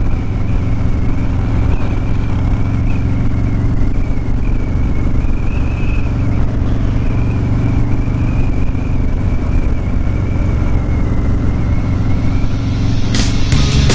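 Harley-Davidson Low Rider S's 114 cubic-inch Milwaukee-Eight V-twin running steadily at a cruise, heard from the rider's seat. Hard rock music cuts in near the end.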